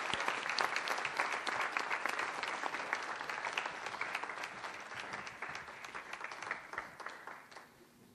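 Audience applauding, the clapping slowly dying away and stopping near the end.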